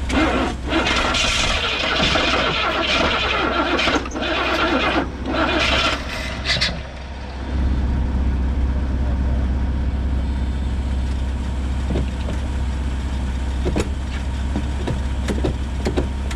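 1971 Buick GS V8 cranking and firing unevenly for about six seconds, then a steady low hum. The engine catches but won't settle into an idle.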